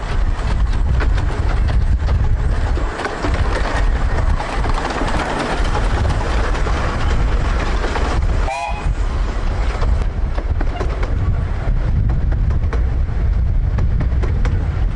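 15-inch gauge miniature railway train running along the track, with wheels clicking over the rail joints over a heavy low rumble. A brief high pitched sound cuts in about eight and a half seconds in.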